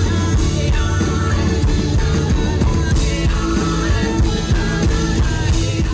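A live band playing: drums, guitar and singing.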